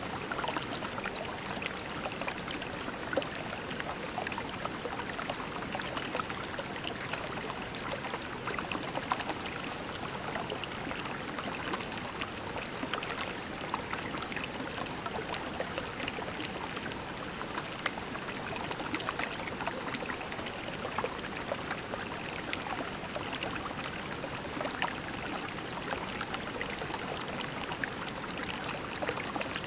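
A shallow creek flowing steadily over pebbles, with a continuous babble and many small splashing ticks.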